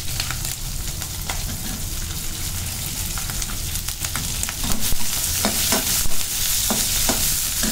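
Chopped onion and green chillies sizzling in hot oil in a metal pan, the start of frying the tempering. A perforated metal skimmer scrapes and clinks against the pan as they are stirred, with a few sharper clinks in the second half.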